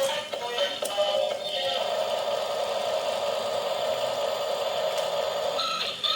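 Tinny electronic music: a quick run of notes, then one held tone for about four seconds, then quick notes again near the end.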